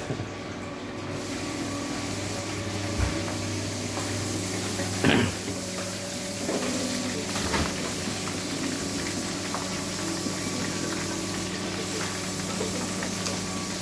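Chicken pieces deep-frying in a wok of hot oil: a steady sizzling hiss that comes up about a second in, with a few short knocks.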